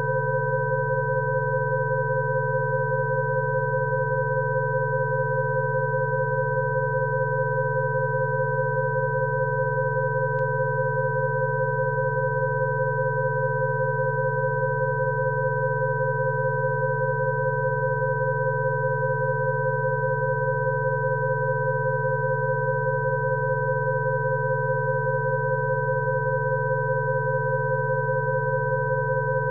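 Electronically generated Rife-frequency tones: several steady pure tones, from a low hum up to a high whistle, sounding together without change.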